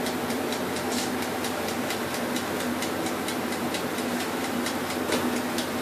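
Electric oven running: a steady hum with fast, regular ticking, about five ticks a second.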